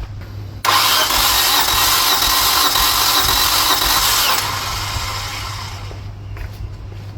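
Nissan 1.8 L QG18DE four-cylinder engine being cranked over on its starter for a compression test. The sound starts suddenly just over half a second in, holds for about three and a half seconds and then tails off. This cylinder, number 3, comes up to nearly 125 psi.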